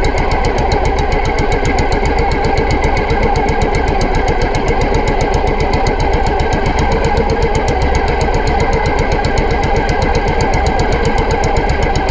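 Engine running steadily at one constant speed, with an even, rapid pulse.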